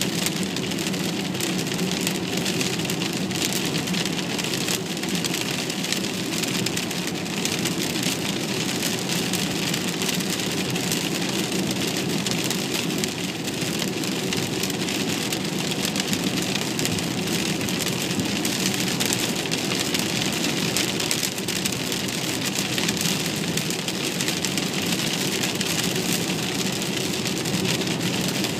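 Steady noise of a car driving in rain, heard from inside the cabin: rain on the windscreen and body mixed with the car's running noise on the wet road.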